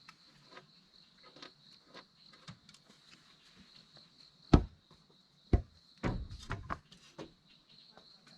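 A steady high insect drone with scattered light clicks and taps. Two sharp knocks come about four and a half and five and a half seconds in, then a short run of rattling knocks around six seconds.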